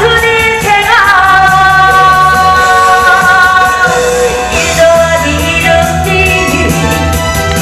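A woman singing live into a microphone over instrumental accompaniment through a PA speaker, holding long notes with vibrato.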